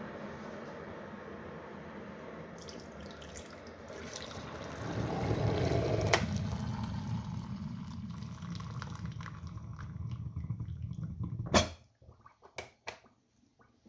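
Breville hot water dispenser running with a steady hiss, then boiling water pouring from its spout into a mug, starting about four seconds in. Near the end a sharp click as its button is pressed and the stream stops, followed by a few lighter clicks.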